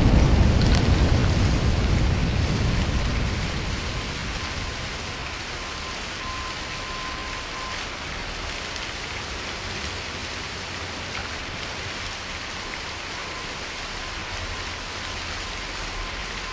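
Aftermath of a marble-quarry blast: a low rumble with a sharp clatter or two of falling stone dies away over the first few seconds, leaving a steady hiss.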